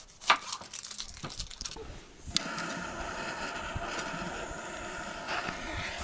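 A campfire being lit: a few sharp clicks and knocks, then from about two seconds in a steady hiss as the cardboard and twig kindling catches.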